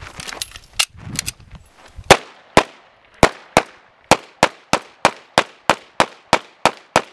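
Semi-automatic pistol fired in a fast string of about fourteen shots, roughly three a second, beginning about two seconds in. Before the string there are a few quieter clicks and knocks.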